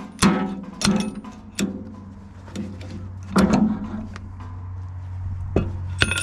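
Hammer blows on the tractor's rear axle hub and wheel puller, each knock ringing briefly. The blows come quickly at first, then further apart, with a last pair near the end, over a steady low hum.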